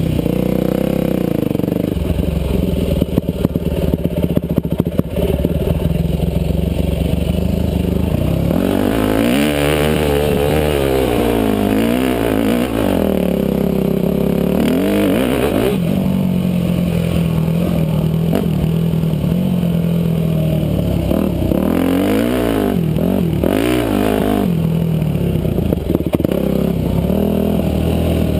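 Yamaha YZ250F four-stroke single-cylinder dirt bike engine heard from the rider's helmet, revving up and down again and again through the gears on a trail. There are clattering knocks over bumps in the first few seconds.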